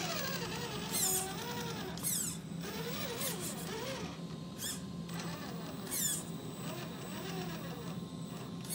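Electric motor and gears of a Traxxas TRX-4 RC crawler whining in short bursts of throttle, the pitch rising and falling as the truck inches forward and back.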